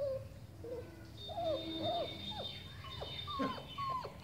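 A string of short, arching animal calls, about two a second, some sliding downward, with a steady high tone joining about a second in.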